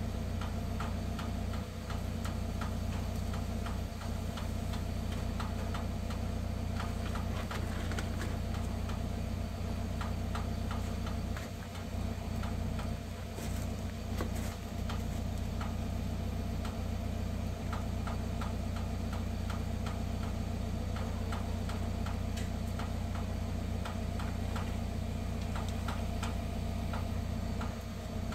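Steady low mechanical hum with many quick ticks over it, like a motor running nearby.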